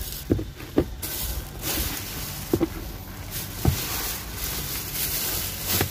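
Clear plastic protective covers on car seats crinkling and rustling in surges as a person climbs into the rear seat, with a few short knocks of body against seat and trim.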